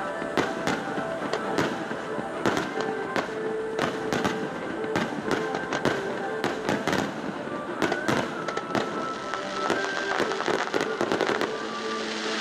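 Aerial fireworks: shells bursting one after another in sharp bangs, with a quick run of close-packed reports about ten seconds in.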